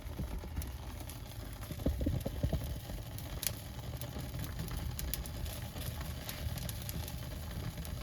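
Pot of pear and tangerine-peel drink at a full boil, bubbling with a steady low rumble and scattered small pops, a little louder about two seconds in.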